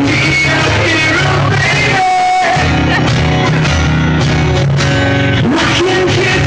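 A male singer performing live with an acoustic guitar, recorded from the audience. About two seconds in, the guitar drops out briefly under a held sung note, then comes back in.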